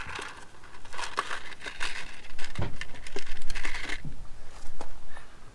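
Irregular crinkling and scraping handling noise with scattered sharp clicks, busiest from about three to four seconds in.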